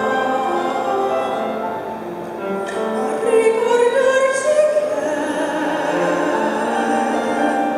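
A woman sings into a microphone, accompanied on grand piano. Her voice glides up about three seconds in and holds a long note.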